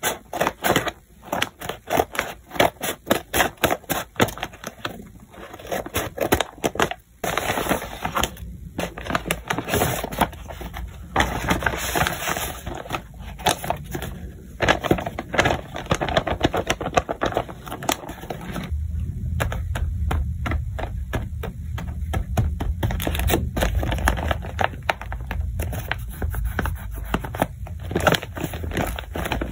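Handmade paper blind bags being handled, crinkling and rustling in many quick crackles, with the paper rubbed and squeezed more heavily from about two-thirds of the way in.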